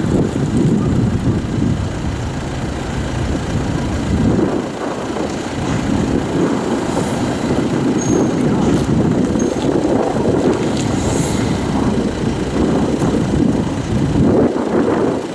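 Wind buffeting the microphone: a loud, uneven low rumble that rises and falls throughout.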